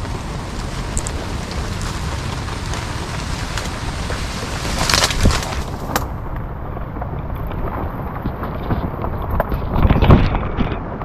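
Wind buffeting the microphone: a steady rushing noise with two louder gusts, about halfway and near the end.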